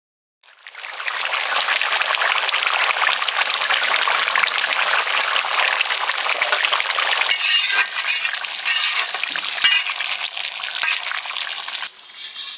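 Duck meat and spices frying in oil in a pan with a steady sizzle, stirred so that the spatula clinks and scrapes against the pan in the second half. The sizzle starts after a brief silent gap and cuts off suddenly near the end.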